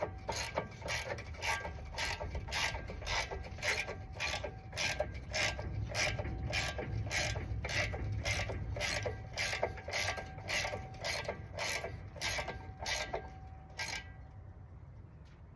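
Hand ratchet wrench clicking steadily as a bolt is turned, about two to three clicks a second, stopping near the end.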